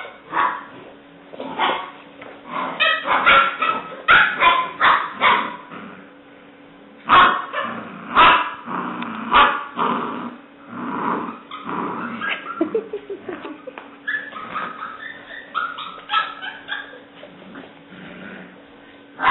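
Seven-week-old English springer spaniel puppy barking and yipping in several runs of short, high calls while tugging at a piece of clothing in play.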